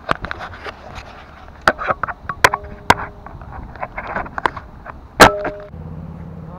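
Handling noise of a camera being grabbed and set back upright on a boat deck: a string of knocks, clicks and scrapes, the loudest about five seconds in, two of the knocks followed by a brief ringing tone. A steady low hum starts near the end.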